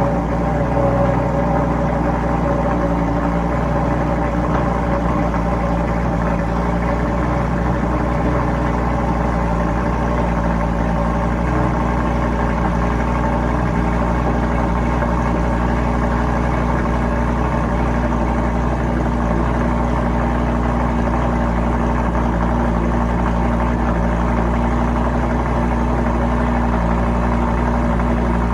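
Lamborghini Gallardo's 5.2-litre V10 idling steadily inside a garage after a cold start, running through its exhaust with an even, unchanging note.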